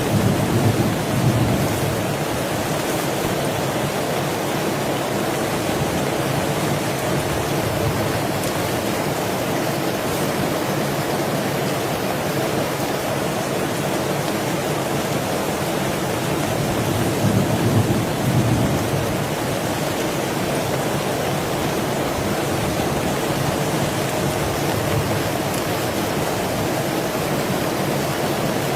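Heavy rain falling steadily, with two brief low swells in level, about a second in and again about two-thirds of the way through.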